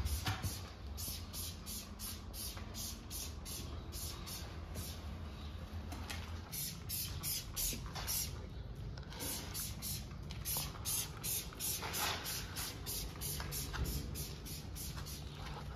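Farrier's hoof rasp filing a horse's hoof in repeated scraping strokes, about two or three a second.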